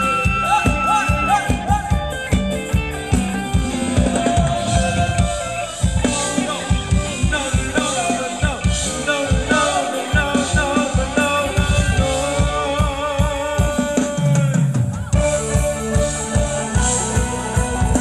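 Live band playing Thai ramwong dance music: a steady drum beat under a singing voice and melody instruments.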